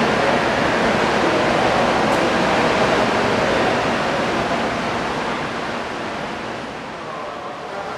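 Steady rushing noise of a 100 Series Shinkansen train at a station platform. It eases off through the second half.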